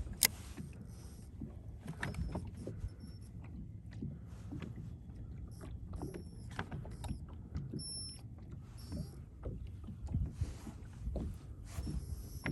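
Handling noise aboard a small fishing boat on the water: a steady low rumble with scattered clicks and knocks, the sharpest click about a quarter second in. A few short, faint high beeps come and go.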